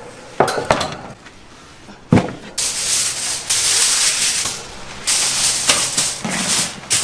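Kitchen prep sounds: a few sharp knocks and clatter, then a loud steady hiss that starts about two and a half seconds in, with more knocks near the end.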